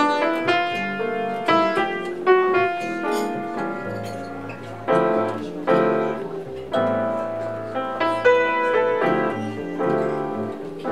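Upright piano playing jazz: a melody line over chords, the notes struck in an unhurried flow.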